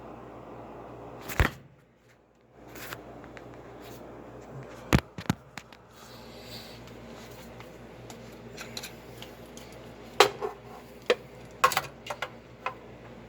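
Scattered sharp clicks and knocks of things being handled: one about a second in, two around the middle, and a quick cluster near the end, over a steady low hum.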